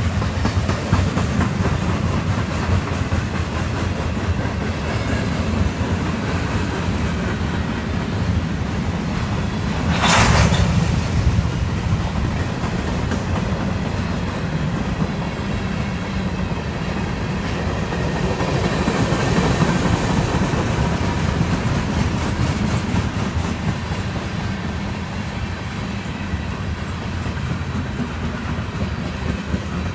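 Freight train cars rolling past close by: a steady rumble of steel wheels on the rails, with a brief louder burst of noise about ten seconds in.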